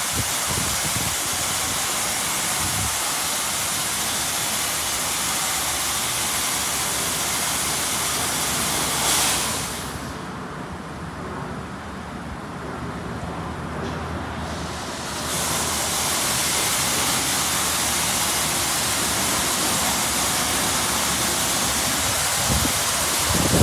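Ryko SoftGloss Maxx 3 touch-free car wash spraying a car with high-pressure water jets, a steady loud hiss. Near the middle the spray stops for about five seconds, leaving a quieter low rumble, then starts again.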